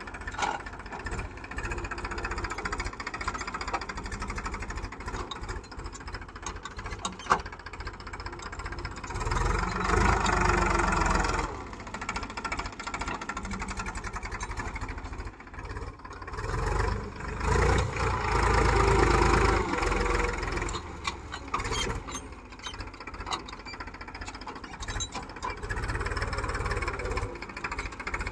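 Powertrac tractor's diesel engine running steadily under load as it drags an implement through the soil. The engine swells louder twice, about a third of the way in and again about two-thirds in. A single sharp click sounds about a quarter of the way in.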